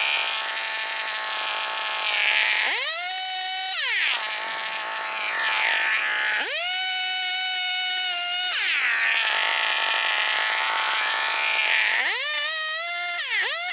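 Stihl two-stroke chainsaw idling, then revved up and held at full throttle for about two seconds before dropping back to idle, twice, with a few quick throttle blips near the end.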